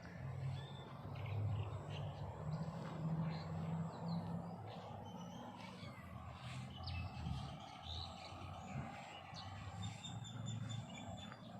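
Small birds chirping in short, scattered calls over a low, uneven hum.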